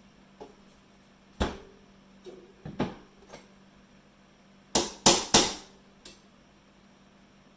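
Sharp knocks and clicks from working on a Ruger Mini-14's trigger group: one knock about a second and a half in, a couple more near three seconds, then three loud strikes in quick succession about five seconds in.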